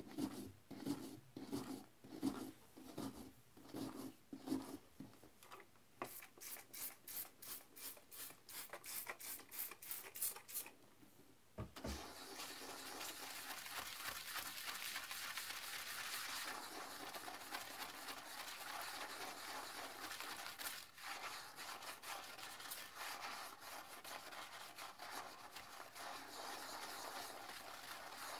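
Plastic toilet brush scrubbing the inside of a porcelain toilet bowl through the water, in separate rhythmic strokes of about two a second at first. After a brief lull and a single knock about halfway through, it turns to fast, continuous scrubbing.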